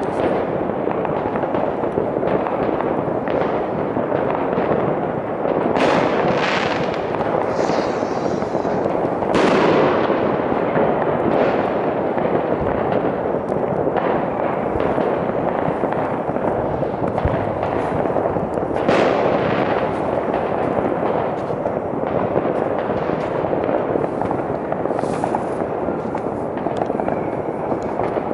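Many fireworks and firecrackers going off at once: a dense, continuous crackling and banging, with a few louder bangs about six, nine and nineteen seconds in.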